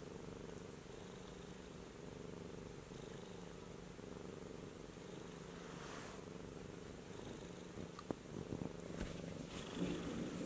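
Domestic cat purring steadily, a continuous low purr. A few small knocks and rustles come in near the end.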